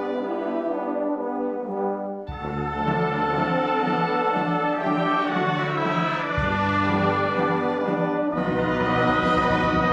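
Wind band of a Maltese band club playing slow, held brass chords, in the manner of a Good Friday funeral march. Deep bass notes come in about two seconds in, and the chord changes every two to four seconds, growing fuller near the end.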